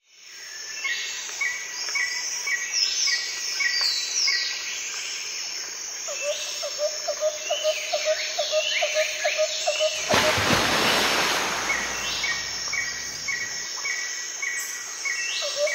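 Birds chirping and calling over and over, in a mix of short repeated chirps and quick rising and falling notes. A loud rushing noise cuts in about ten seconds in and lasts a couple of seconds.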